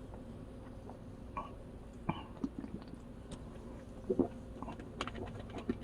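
A person chewing food up close, with scattered short crunches and clicks.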